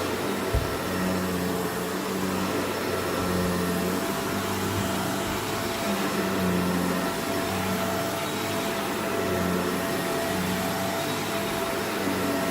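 Vacuum cleaner running while it picks up dirt, its motor tone swelling and fading in a regular rhythm with each push and pull stroke. A single short knock comes about half a second in.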